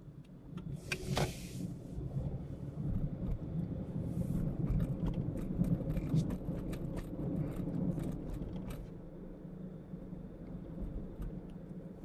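Car driving on a road: steady low rumble of tyres and engine, with small rattles and ticks, easing over the last few seconds as the car slows.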